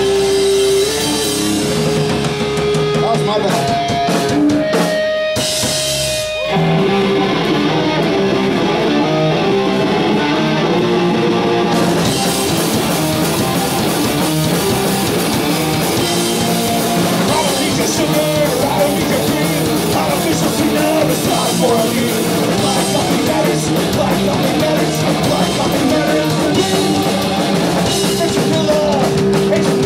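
Punk rock band playing live: distorted electric guitars and a drum kit, loud and driving, with a brief break about five seconds in before the full band comes back in.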